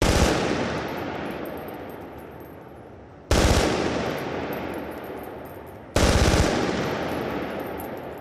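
Machine gun firing three short rapid bursts, about three seconds apart. Each burst rings out in a long, slowly fading echo, with faint high-pitched clinks in the tails.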